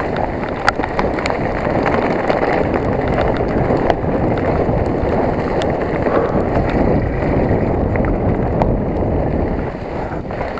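Specialized Enduro 29 mountain bike descending fast over rough ground: a steady rush of wind on the microphone and tyre rumble, with scattered clicks and rattles from the bike.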